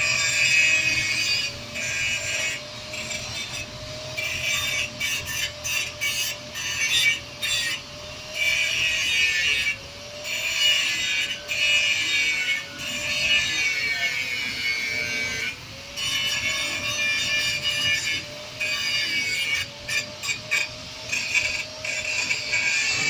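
Loader machine working while lifting steel rebar. A steady whine wavers and dips in pitch for a moment around two-thirds of the way through, under repeated bursts of high, gritty scraping that start and stop every second or two.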